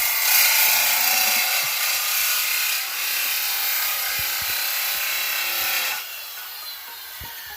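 Power saw cutting through timber, a loud steady rasping run that drops off sharply about six seconds in.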